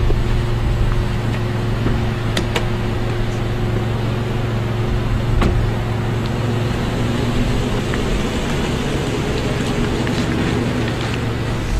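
Car engine running steadily in a parking lot, with a few sharp clicks, two close together about two seconds in and one more about five seconds in.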